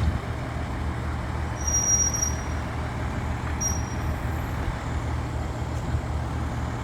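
Steady low hum of a running vehicle engine with a light noise haze, and a faint high-pitched whine that comes in twice briefly.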